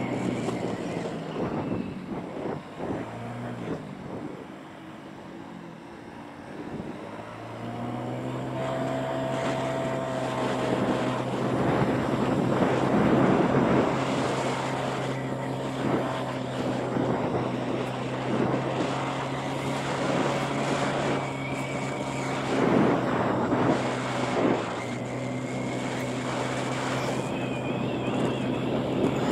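Small motorbike engine running while riding. It drops low a few seconds in, then rises in pitch at about seven seconds as the bike picks up speed, and holds a steady note after that.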